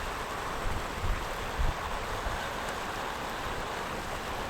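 Steady rush of river water, with wind buffeting the microphone in a few low gusts in the first couple of seconds.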